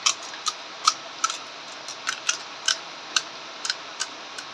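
Crisp pani puri shells being chewed close to the microphone: a string of short, sharp crunches, about three a second.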